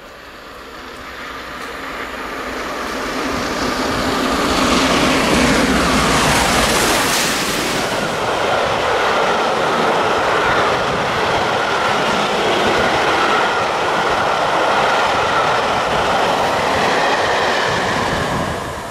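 Three-cylinder A1 Pacific steam locomotive 60163 Tornado running through a station at speed without stopping. It grows louder as it approaches and is at its loudest, with a hissing rush, as the engine passes about five to eight seconds in. The coaches then roll steadily past, and the sound drops away near the end as the train clears.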